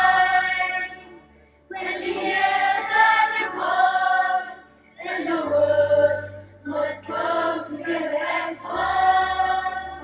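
A choir of young students singing together over a backing track with a low bass line, in sung phrases with short pauses between them.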